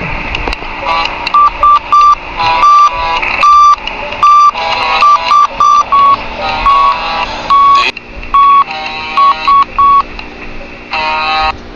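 A string of short electronic beeps of uneven length, most at the same mid-high pitch, some held longer, with a quick flurry of mixed tones near the end, over a steady hiss.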